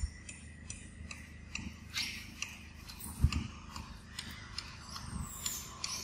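Irregular light ticks and crackles of dry leaf litter as a baby macaque moves and handles things in it, with a dull thump about three seconds in and a softer one near five seconds.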